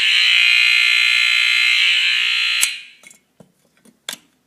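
Edwards mechanical fire alarm horn, set off from a pull station, sounding a loud, steady, unbroken buzz. It cuts off sharply with a click a little over halfway through, and a few light clicks and knocks follow.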